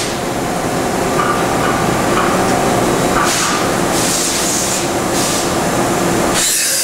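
1986 Okuma MC-50H 4-axis CNC horizontal machining center running through a dry-run cycle: a steady mechanical running noise with a faint hum. Hissing spurts of coolant spray come a few times from about three seconds in, and a longer one comes near the end.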